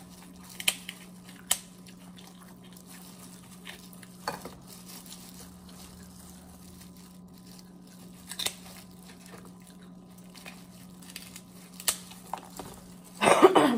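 Crab shell cracking and being pulled apart by hand in plastic gloves, with scattered sharp cracks, crinkling and squishing. Near the end there is a louder, longer rustling burst. A steady low hum runs underneath.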